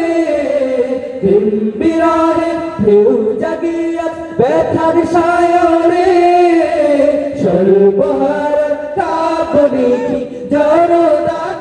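A group of men singing a Bangla Islamic gojol into microphones, unaccompanied, in long held phrases with short breaks between them.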